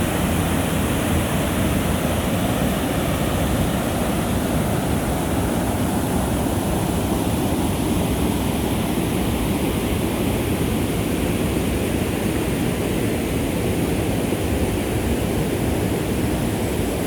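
Dalcairney Falls waterfall rushing steadily, very, very noisy.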